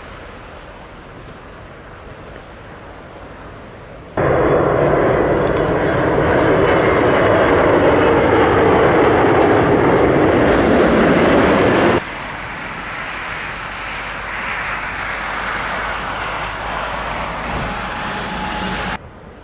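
Jet airliner's engines on landing approach, a steady roar heard in abruptly cut segments. It is moderate at first, much louder from about four seconds in, then drops sharply at about twelve seconds to a moderate level that cuts off near the end.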